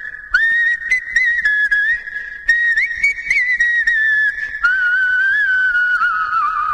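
A melody whistled in long held notes with quick little turns, starting a new phrase about a third of a second in, again about two and a half seconds in and again near four and a half seconds, where it drops lower for the closing phrase.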